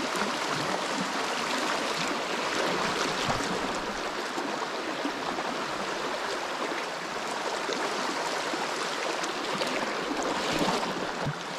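Shallow river current running fast over a stony riffle: a steady rushing of water.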